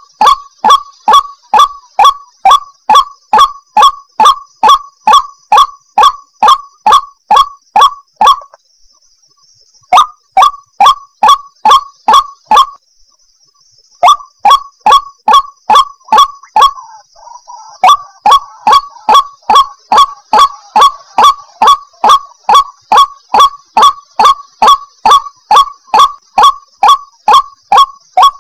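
White-breasted waterhen calling: a fast, even run of loud, harsh 'kruak' notes, about three a second, broken by two short pauses in the first half. A fainter second waterhen's call overlaps briefly a little past the middle.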